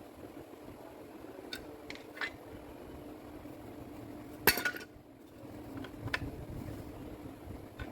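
Metal parts and tools clinking on a workbench: a few short sharp clinks and one louder clatter about four and a half seconds in, over a low steady hum.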